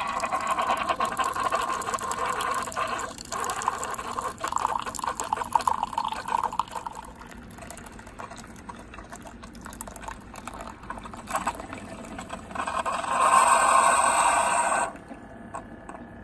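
Single-serve pod coffee maker brewing: a thin stream of coffee pouring into a ceramic mug. The sound grows louder for a couple of seconds near the end, then stops suddenly as the brew finishes.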